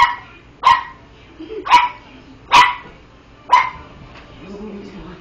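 Small dog barking: five sharp barks about a second apart, then a fainter low sound near the end.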